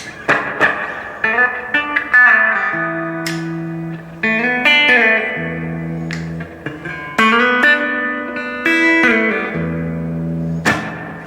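Electric guitar, a Gibson Les Paul, played through an Electro-Harmonix Oceans 11 reverb pedal into a Blues Cube amp. A run of quickly picked notes is followed by chords left ringing with long reverb tails.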